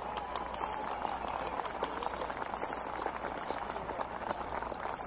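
Large crowd applauding, a dense crackle of many hands clapping, heard on an old 1963 recording that has lost its high end.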